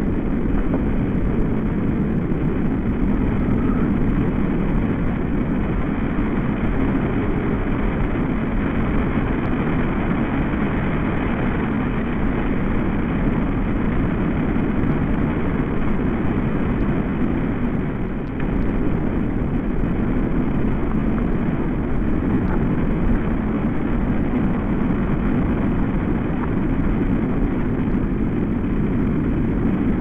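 Wind rushing through tree leaves, electronically processed into a steady, low, rushing drone, with a brief dip about eighteen seconds in.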